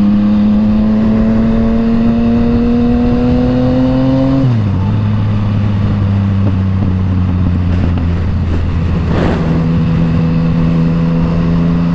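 Yamaha MT-09 inline-triple with an Akrapovic exhaust under way, its note climbing steadily for about four seconds, then dropping abruptly and holding steady at a lower pitch.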